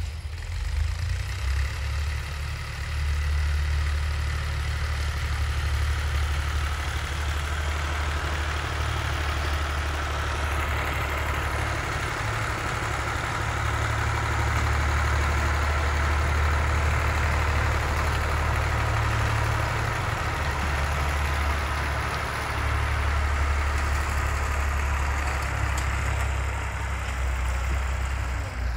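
Farm tractor's diesel engine running steadily with a deep, even hum.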